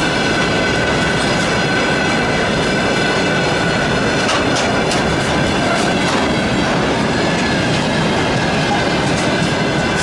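Freight train of hopper-dispenser cars rolling past at speed: a steady rumble of wheels on rail, wheels clicking over rail joints, and a steady high squeal.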